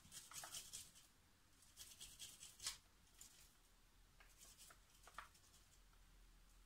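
Garlic clove rubbed on a small metal hand grater: faint rasping strokes in three short runs with pauses between.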